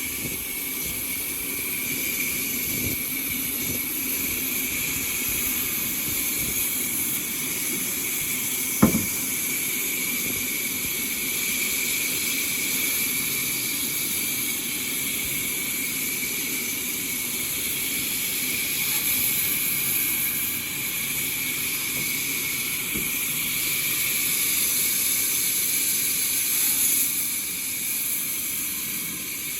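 Sawmill machinery running steadily, with a constant high-pitched whine. A single sharp knock about nine seconds in.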